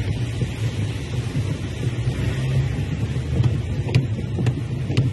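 Inside a car driving through heavy rain: a steady low rumble of the car and its tyres on the wet road, with rain noise over it and a few sharp ticks in the second half.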